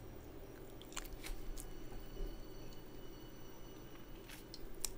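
Quiet room tone with a faint steady hum, broken by a few soft scattered clicks about a second in and again near the end.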